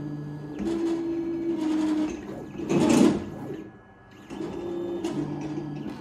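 Homemade CNC plasma table's gantry drive motors whining in steady tones that change pitch and stop and start with each move as the machine draws a test pattern. A louder, noisier burst comes about halfway through.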